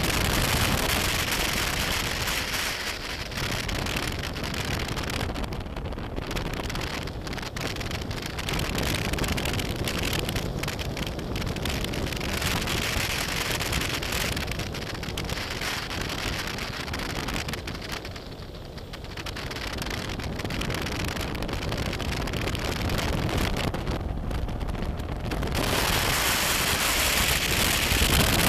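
Steady rush of wind and tyre noise from a BMW F800GS motorcycle on the move, with the engine buried underneath; the noise dips briefly about two-thirds of the way through and grows louder near the end.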